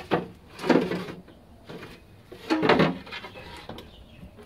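Car door window glass scraping and sliding in its run channel and rubber seal as it is worked out of a bare door shell, in three rough strokes.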